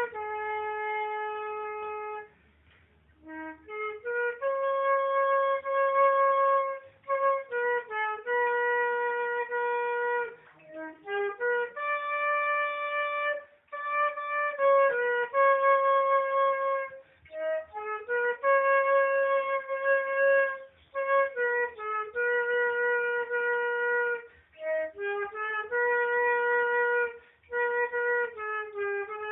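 Solo transverse flute playing a slow melody: long held notes joined by short, quick runs, with a few brief pauses between phrases.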